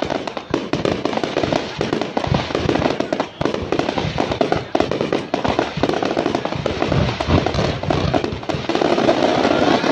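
Fireworks display: a rapid, unbroken barrage of aerial shells launching and bursting, a dense run of bangs and crackles with no pause.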